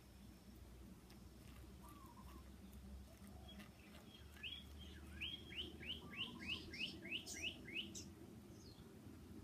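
A songbird singing faintly: a quick run of about ten rising, hooked whistled notes at about four a second, starting about four and a half seconds in.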